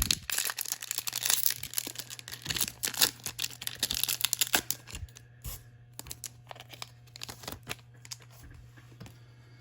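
Foil wrapper of a Topps Chrome baseball card pack being torn open and crinkled. There are about five seconds of dense crackling, then sparser crinkles and clicks that thin out near the end.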